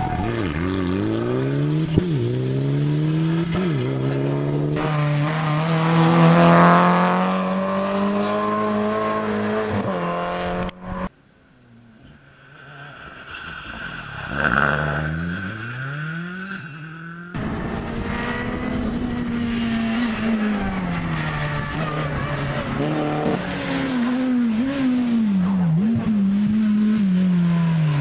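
Rally car engines at full throttle, pitch climbing through each gear and dropping on the shifts and lifts, with tyre squeal; one car approaches and passes in the middle, its pitch peaking and then falling as it goes by.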